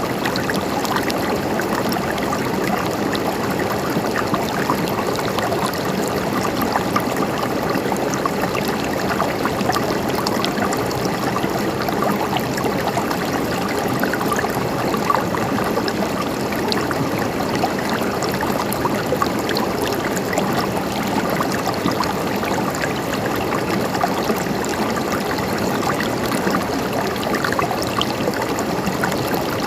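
River water flowing and gurgling, a steady rushing with small splashes.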